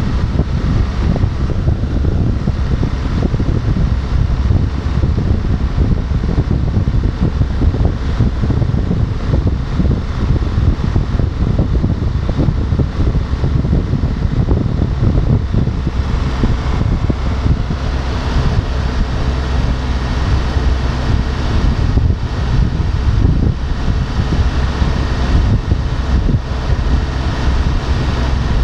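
Wind rushing over the microphone of a motorcycle at highway speed, a steady low rumble with the engine droning underneath.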